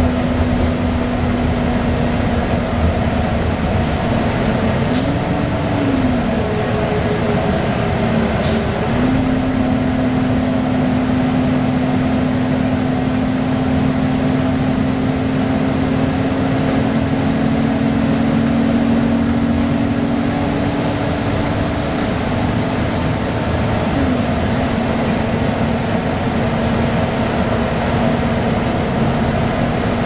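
Cabin sound of a 1998 Orion V transit bus under way: its Detroit Diesel Series 50 four-cylinder diesel and Allison B400R automatic transmission running as a loud, steady drone, with a humming tone that shifts up and down in pitch a few times.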